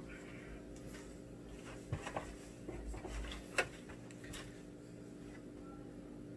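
Quiet room tone with a steady faint hum, broken by a few faint clicks and taps about two, three and a half, and four seconds in.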